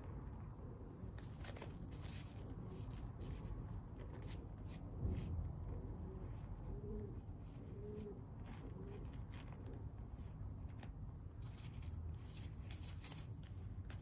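Close handling noise as stretchy fabric strips are wrapped around a pigeon on a paper pad: a run of short crackles and rustles, denser for a couple of seconds near the end.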